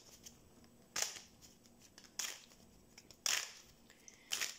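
A deck of Neapolitan playing cards being shuffled by hand: four brief papery swishes, about one a second.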